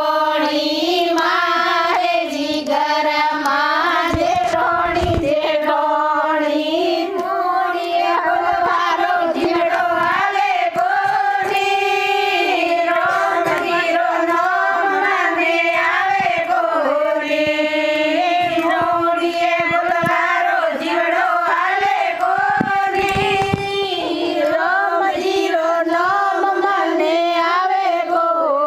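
A group of women singing a Hindi devotional bhajan (kirtan) together in unison, with hand-clapping keeping time.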